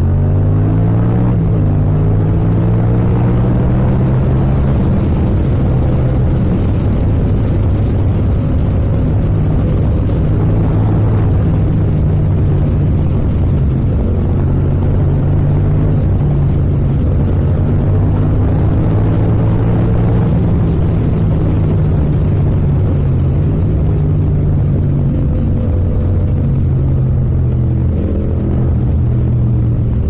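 Yamaha MT-07's parallel-twin engine running under way, heard from the rider's seat. Its pitch climbs over the first second or so as it accelerates, then holds fairly steady with small rises and falls with the throttle.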